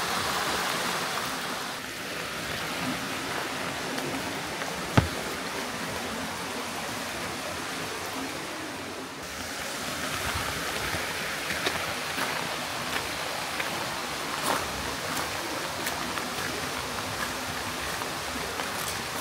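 A stream rushing and splashing steadily, with one sharp click about five seconds in and a few fainter clicks later on.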